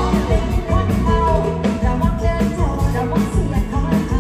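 Live band music with a singer, over heavy bass and a steady beat.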